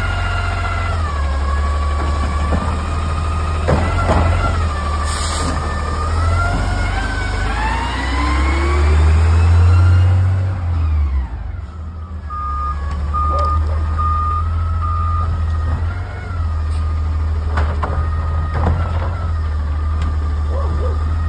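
Front-loader garbage truck with a Curotto Can arm running its diesel engine, which revs up about eight to ten seconds in as the truck works and pulls away. A short hiss of air comes about five seconds in, and a backup alarm beeps about five times a little past the middle.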